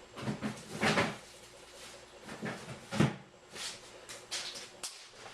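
Throwing plastic wrappers into a kitchen garbage can: rustling and clattering about a second in, then a single sharp knock about three seconds in, followed by a few small clicks.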